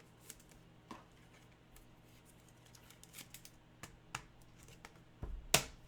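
Scattered faint clicks and light rustles of trading cards and plastic card holders being handled, with one louder click and low knock about five and a half seconds in.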